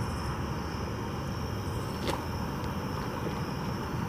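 Steady outdoor night background: a low rumble with a thin, steady high tone above it, and a single sharp click about two seconds in.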